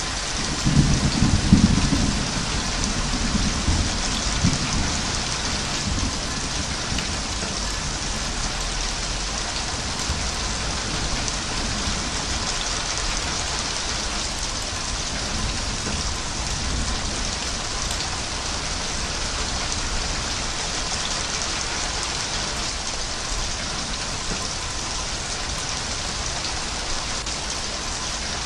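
Steady heavy rain falling, with a low roll of thunder that starts about half a second in, peaks around two seconds and rumbles away by about six seconds.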